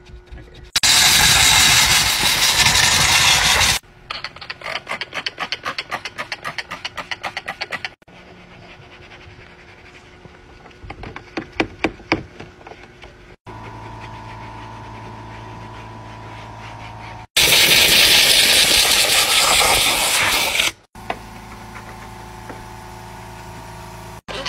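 Car-interior detailing noises across several quick cuts: two loud bursts of hiss, a brush scrubbing with rapid scratchy strokes, and a corded cleaning machine running with a steady hum.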